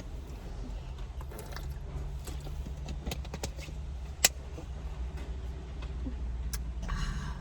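Steady low rumble of a car heard from inside the cabin, with scattered small clicks and rustles and one sharp click about four seconds in.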